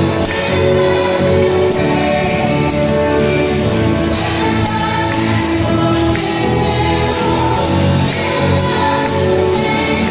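A live worship band playing a song, with electric guitars, drum kit and keyboard under a sung melody.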